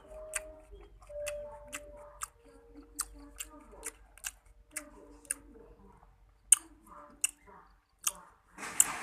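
A person chewing mouthfuls of sour salted mango, with irregular sharp wet mouth clicks and lip smacks, one or two a second, and a louder rustling burst near the end.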